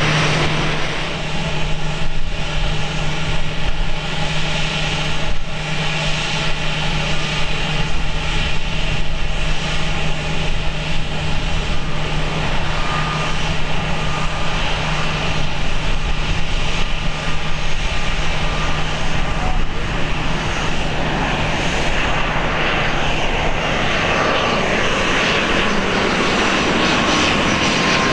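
Airliner engines running, a steady loud drone; about halfway through a faint whine appears and slides slowly down in pitch as the hiss grows. Wind rumbles on the microphone underneath.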